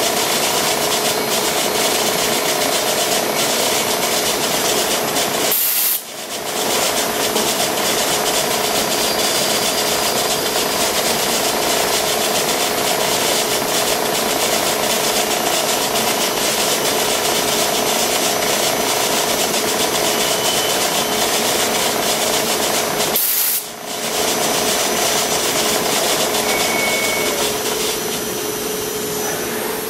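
A shop drilling machine running a 1/8-inch drill bit into the head of a frozen steel rifle action screw, cutting a pilot hole: a steady machine drone with a constant tone under the cutting noise. The sound drops out briefly twice.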